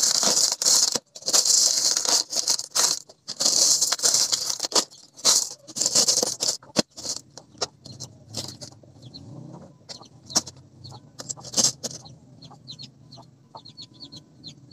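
Small pebbles and gravel rattling and clattering in a plastic tray as they are scooped and spread by hand. The clatter is dense for about the first seven seconds, then thins to lighter, scattered clicks.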